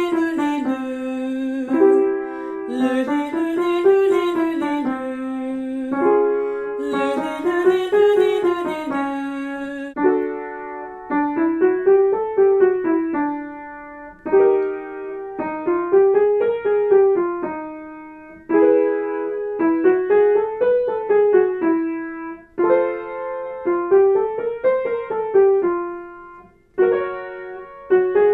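Piano playing vocal warmup accompaniment: a short scale pattern runs up and back down, a chord follows, and the pattern repeats a little higher each time.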